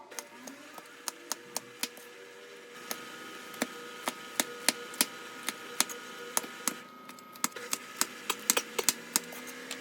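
Knife chopping on a wooden cutting board: a series of sharp, irregular knocks, coming faster after about three seconds.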